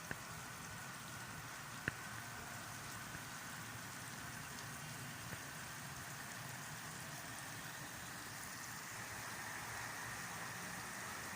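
Steady rain falling, an even hiss with a few single sharp ticks, the loudest about two seconds in.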